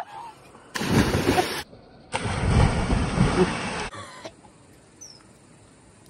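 Two loud bursts of rushing, splashing noise, each cut off abruptly: a cliff jumper plunging into a waterfall pool.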